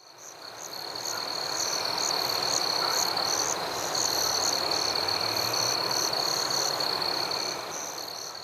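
Night chorus of frogs and insects: a steady high trill with higher chirps pulsing over it about twice a second, above a soft hiss. It fades in at the start.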